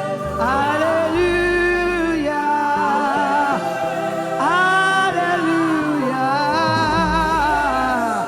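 Gospel worship song: a solo voice sings long, gliding held notes over a bass line.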